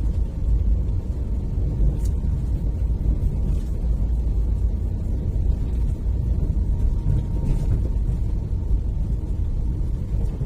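Steady low rumble of a vehicle driving along a paved road: engine and tyre noise, with a couple of faint ticks.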